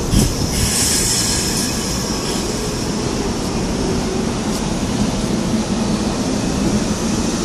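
Korail Line 1 electric commuter train running along the platform and slowing to a stop, wheels rumbling on the rails. A high hiss is strongest in the first two seconds.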